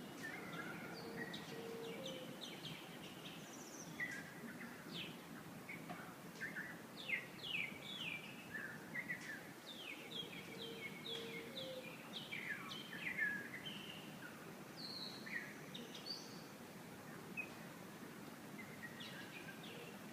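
Wild birds chirping and singing in a morning chorus: many short, quick, downward-sweeping notes, busiest in the middle, over a steady low background rumble. A short low two-note call comes twice.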